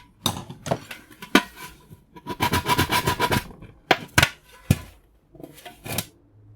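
Small pieces of scrap metal clinking and knocking against each other and a work surface, with a quick run of rapid scraping strokes about two to three and a half seconds in.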